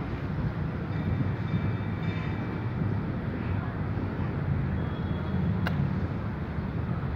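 Steady low rumble of city traffic, with a single sharp knock a little over five and a half seconds in.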